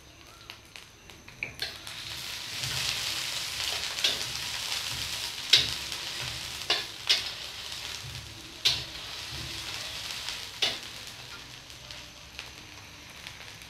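Sliced onions sizzling in hot mustard oil in a steel wok, stirred with a metal spatula that scrapes and knocks against the pan several times. The sizzle swells about two seconds in and eases toward the end.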